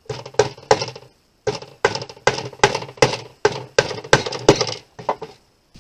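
Claw hammer driving small fasteners into a wooden board. Three quick blows, a short pause, then about nine steady blows at roughly two and a half a second, ending with two lighter taps.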